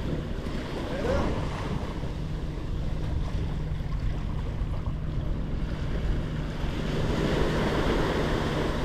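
Small waves breaking and washing up a sandy beach, with wind buffeting the microphone; the surf grows a little louder near the end.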